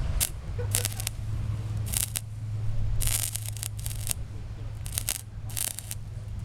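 Stick-welding arc powered by two gel cell batteries, struck in short spurts: sputtering crackle bursts of a few tenths of a second, about one a second, under a low steady hum.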